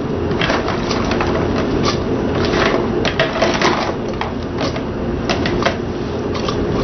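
Pot of sour soup boiling on a gas stove: a steady hum with many small irregular pops and clicks, as handfuls of tomato and shredded vegetables are dropped into the pot.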